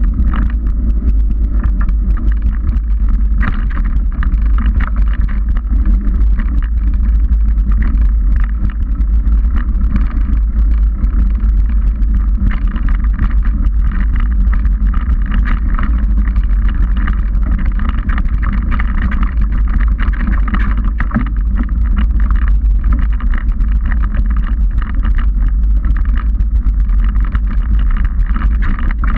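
Steady low rumble of a 29er mountain bike's knobby tyres rolling on a packed dirt trail, mixed with wind buffeting the handlebar-mounted action camera, with frequent small clicks and rattles from the bike and camera mount over bumps.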